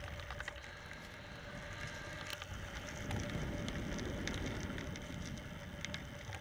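Mountain bike rolling over rough paving and gravel, heard through a camera mounted on the bike: a crunching, crackling tyre noise with small clicks and knocks from the bike's rattle. It gets louder from about three seconds in.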